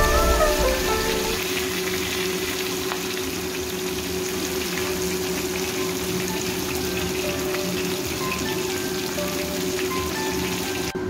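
Oil sizzling steadily around fish pieces stuffed with minced pork as they fry in a wok, with faint background music underneath.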